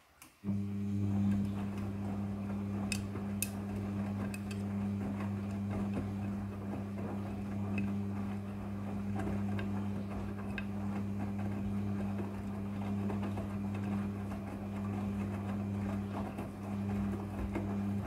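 Midea front-loading washing machine's drum motor turning the wash drum: a steady low hum that starts about half a second in and stops near the end, with scattered light clicks from the load tumbling against the drum.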